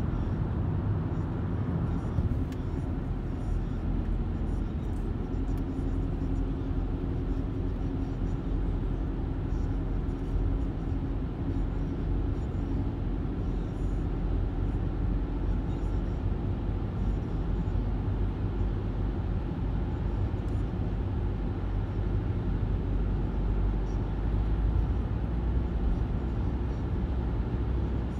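Steady road noise of a car being driven, heard from inside the cabin: a low rumble of engine and tyres on the pavement.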